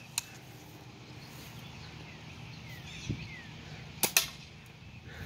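A BB gun fires about four seconds in: a sharp crack with a second click right after it. A faint click comes just after the start and a dull thump about three seconds in.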